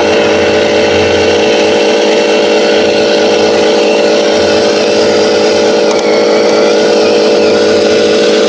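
Huina 1501 RC Scania 770S model truck running with a steady pitched drone and a fainter wavering whine above it.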